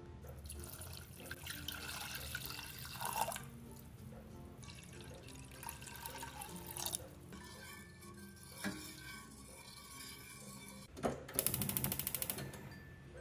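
Water poured into a stainless steel pot of sugar and agar-agar powder, in two pours with a pause between. Near the end, a run of rapid clicking as the gas stove burner is lit.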